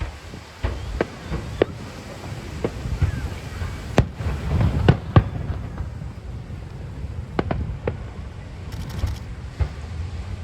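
Aerial fireworks shells bursting in an irregular series of sharp bangs, about a dozen, with the loudest cluster around the middle.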